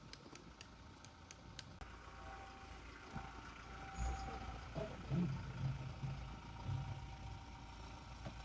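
A motor vehicle's engine running, a low rumble that grows louder about four seconds in.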